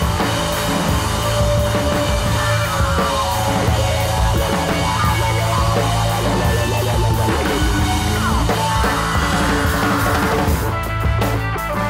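Background music: instrumental rock with a drum kit and guitar, steady and loud, with sharper regular drum hits near the end.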